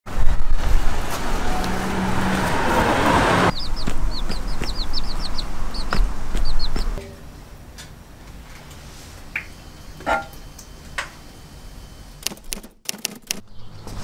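A loud rushing noise for the first few seconds, then baby chicks peeping, a quick run of about ten short high peeps. After that it drops to a quiet stretch with a few faint clicks near the end.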